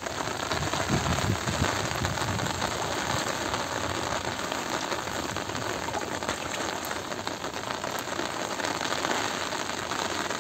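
Steady rain falling on the surface of shallow floodwater, an even hiss.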